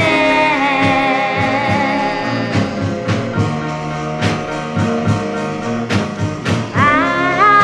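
Oldies soul record playing: held instrument lines over a steady drum beat, with a melody line sliding up into a new phrase near the end.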